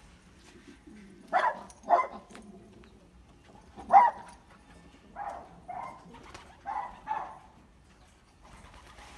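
A series of short animal calls, seven in all, mostly in pairs: two about a second and a half in, a single loud one about 4 s in, then two more pairs between 5 and 7 s.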